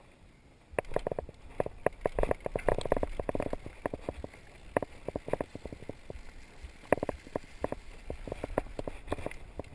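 Mountain bike clattering and rattling as it rides over a rough, rocky singletrail: a run of sharp knocks and jolts starting about a second in, densest around two to three seconds in, then scattered to the end.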